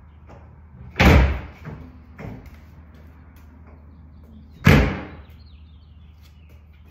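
Lids of large wheeled plastic trash bins slamming shut, twice: one about a second in and a second, just as loud, nearly four seconds later, with a few lighter knocks and bumps between.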